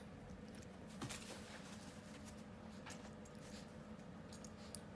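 Faint scuffling and a few light clicks as a small Maltese–Shih Tzu puppy moves about on carpet among plush toys, over a steady low room hum.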